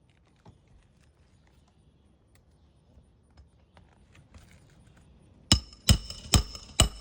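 Faint clinking and rustling, then a hammer driving roofing nails into asphalt shingles: four sharp ringing strikes about half a second apart, starting about five and a half seconds in.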